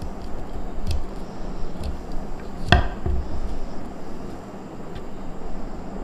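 Kitchen knife chopping ingredients on a wooden cutting board, a stroke about once a second with one louder chop near the middle, over a steady low background rumble.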